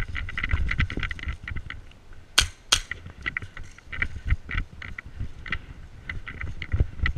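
Two sharp shots about a third of a second apart from a gas blowback airsoft pistol, a Tokyo Marui Hi-Capa, about two and a half seconds in. Around them, a steady run of quick light clicks and scuffs from footsteps on the rooftop tiles.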